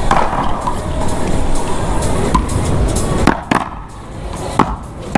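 One-wall paddleball rally: sharp cracks of a solid paddle striking the ball and the ball smacking off the wall. About three hits come in quick succession in the second half, over steady outdoor background noise.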